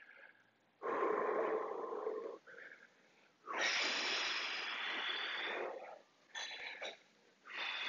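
A man breathing heavily in and out through the microphone, a few long breaths each lasting one to two seconds, catching his breath after a marching warm-up.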